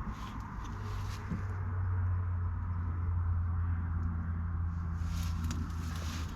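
Claas Arion 660 tractor's 6.8-litre six-cylinder diesel running steadily with a low hum that grows louder about a second in. Light scattered ticking and rustle sounds come near the start and again near the end.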